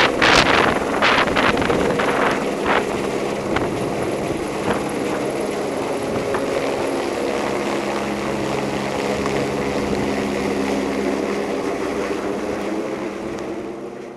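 Helibras AS350 Esquilo police helicopter lifting off and climbing overhead. Gusts of rotor downwash buffet the microphone for the first few seconds, then the rotor and turbine settle into a steady drone that fades near the end.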